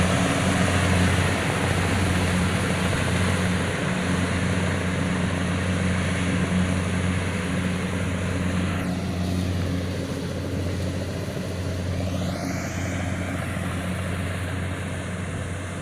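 Kubota DC70PH+ combine harvester running, a steady engine drone with a low hum under a broad mechanical rush. About nine seconds in the higher part of the noise drops away, then sweeps back up over the next few seconds.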